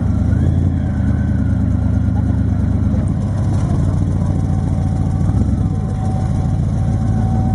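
Supercharged V8 of a hot-rodded Ford Popular idling with a steady, deep exhaust note.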